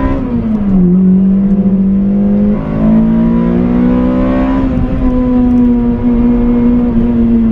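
Toyota Corolla's 1.8-litre four-cylinder VVTL-i engine (2ZZ-GE), with ported headers and intake, pulling hard, heard from inside the cabin. The note falls sharply at an upshift about half a second in, then climbs steadily for about four seconds. Near the five-second mark it dips a little and sinks slowly as the throttle eases.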